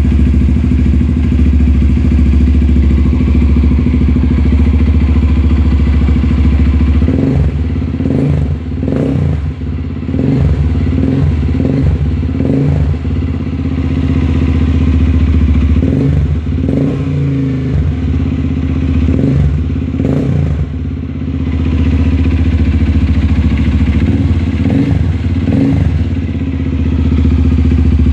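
Honda Bros 150 single-cylinder engine running through a Coyote tri-oval aftermarket exhaust. It idles steadily, then from about seven seconds in it is revved in repeated short throttle blips with sharp cracks from the exhaust.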